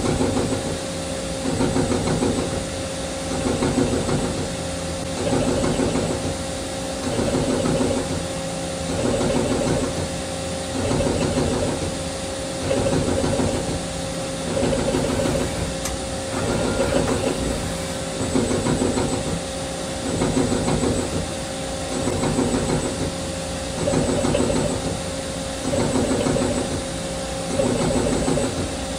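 CNC lathe running with a steady machine whine, and a cutting noise that swells and fades about every two seconds as the tool makes repeated plunge cuts to form a square profile.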